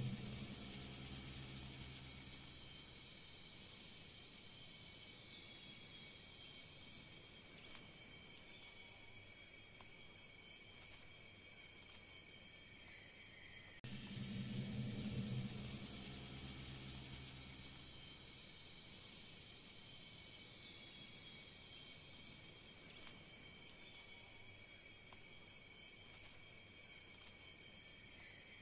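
Faint, steady high-pitched chirring of crickets and other insects, from a nature-sound bed that repeats about every 14 seconds. At the start and again about halfway through, a low humming tone swells up for a few seconds under the chirring.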